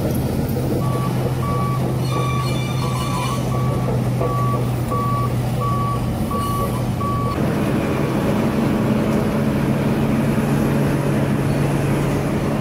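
A heavy vehicle's back-up alarm beeping steadily, about three beeps every two seconds, over its engine running. About seven seconds in the beeping stops and the engine note grows fuller.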